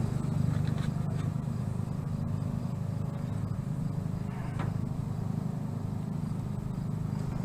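Steady low drone of an engine running in the background, with a couple of faint knocks.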